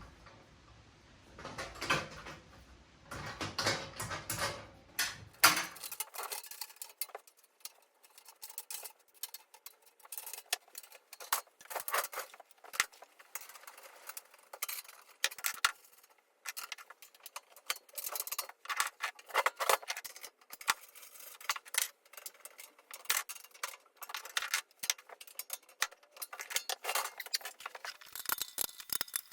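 Irregular clinks, taps and rattles of small metal parts and hardware being handled during assembly of a dust extractor, with a low rumble under them in the first few seconds.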